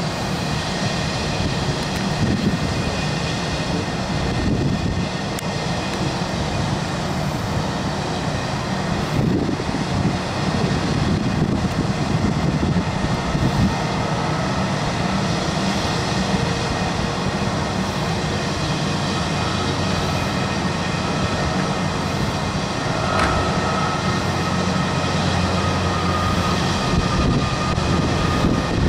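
Airbus A321's IAE V2500 turbofan engines running: a steady jet rumble, with a thin whine coming in about two-thirds of the way through.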